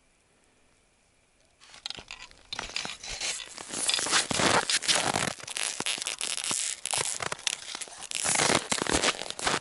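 Close rustling and crunching of stiff winter clothing as the wearer bends and handles a frozen fish, starting suddenly about a second and a half in and running on as dense crackling full of small clicks.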